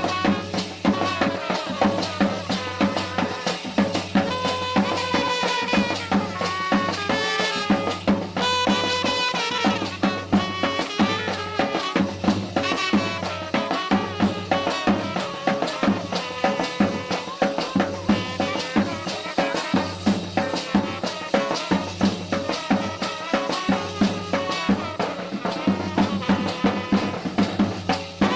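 Band party music, the kind of street brass band hired for South Asian weddings: a melody played by wind instruments over busy, fast drumming and rattling percussion.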